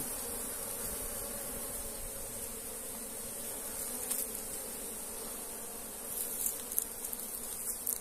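A large mass of honeybees buzzing in a steady hum around an opened log hive, the colony stirred up by the comb being cut out for honey. A few light clicks come near the end.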